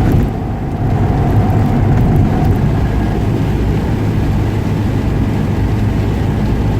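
Steady low engine and road rumble inside the cabin of a Honda S2000 roadster being driven.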